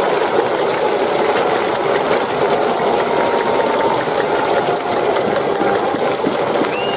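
Dense, rapid clapping from a large crowd of baseball spectators in a cheering section, steady and loud throughout.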